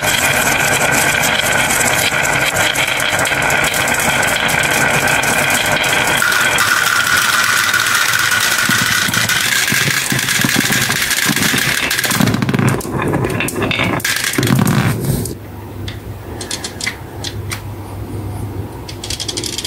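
Many glass marbles rolling and clattering down a wooden slope and dropping into a plastic toy truck's cargo bed: a dense, continuous rattle of clicks. About twelve seconds in the clatter gives way to a few low bumps, then quieter scattered clicks.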